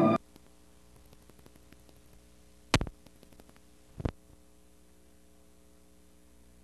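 Faint steady electrical hum, broken by two sharp clicks about a second and a half apart near the middle. Organ music cuts off just at the start.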